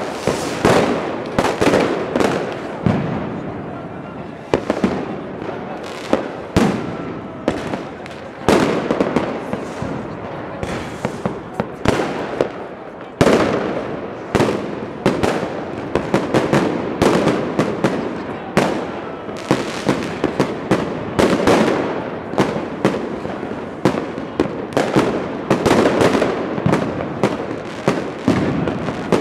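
Fireworks and firecrackers going off all around in rapid, overlapping bangs and crackles, with no pause.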